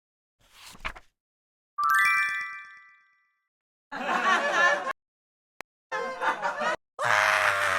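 Short edited-in sound effects with dead silence between them: a brief swish, then a bright bell-like ding that rings out for about a second, followed by three short bursts of voice-like sound in the manner of laughter clips.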